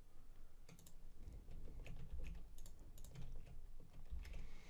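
Faint, irregular clicks of a computer keyboard, about a dozen keystrokes, as text in an editor is selected and replaced by pasted text.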